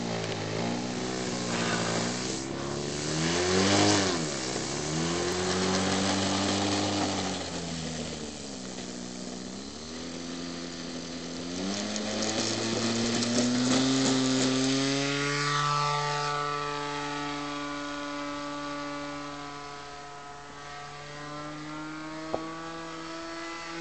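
The engine of a Funtana 40 radio-controlled model plane, revved up and down several times on the ground, then opened up to full throttle about halfway through for the takeoff run, rising steeply in pitch before settling to a steady high note as the plane climbs away.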